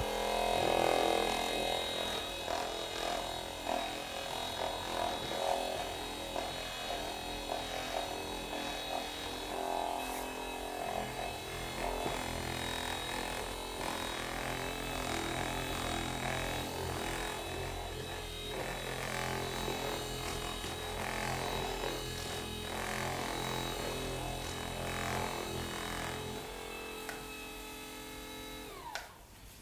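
HeyChy V2 percussive massage gun running, its motor giving a steady whirring hum with a stack of whining tones. Near the end it is switched off and the whine falls in pitch as the motor stops.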